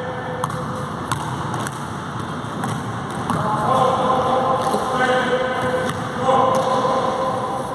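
Basketball dribbled on an indoor court floor, a few bounces about two-thirds of a second apart in the first two seconds.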